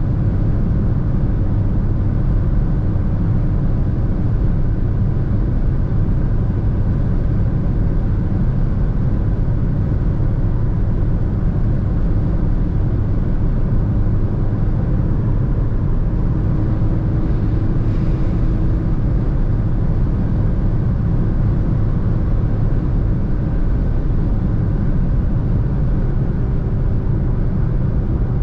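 A Fiat Egea (Tipo) hatchback's 1.6 diesel engine and its tyres cruising at motorway speed: a steady low rumble that keeps on without a break.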